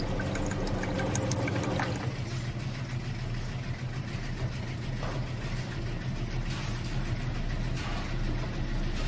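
Launderette vending machine pouring a stream of liquid into a plastic cup for about the first two seconds. Under it is a steady mechanical hum of washing machines running.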